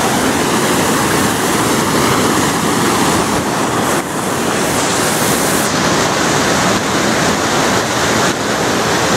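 Water of a small waterfall rushing over rock ledges, a loud, steady rush with a brief dip about four seconds in.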